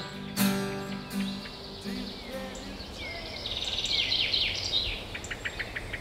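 A strummed acoustic guitar chord rings out and fades over the first couple of seconds. Then songbirds sing, with a quick run of short chirps near the end.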